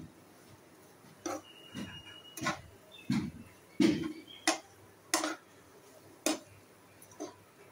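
A spatula knocking and scraping against a metal pan while stirring a thick bitter gourd curry: about nine uneven knocks, roughly one every half second to a second.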